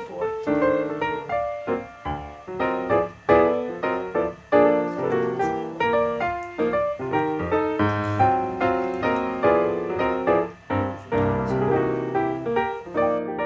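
Background piano music: a quick, continuous run of struck notes.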